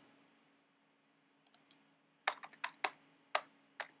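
Computer keyboard keystrokes: a short run of about eight sharp key taps in the second half, after a couple of faint ones.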